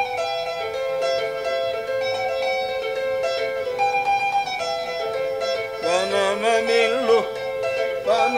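Electric guitar played solo, a flowing line of picked, sustained notes. About six seconds in, a voice sings a short phrase with vibrato over it.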